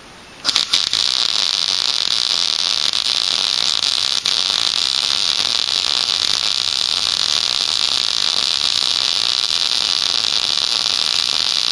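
MIG welder laying a bead: the arc strikes with a few sputtering pops about half a second in, then settles into a steady sizzling hiss, with a brief break about four seconds in.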